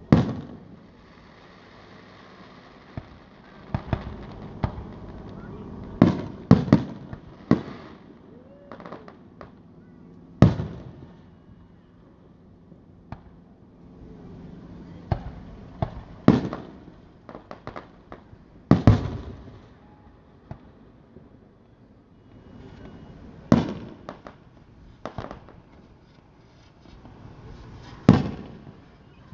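Aerial fireworks shells bursting overhead: about a dozen sharp booms, each trailing off in an echo. Several come in quick succession a few seconds in, and the rest are spaced a few seconds apart.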